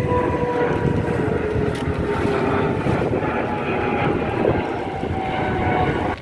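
A steady mechanical drone whose hum slowly falls in pitch, over a low rumble.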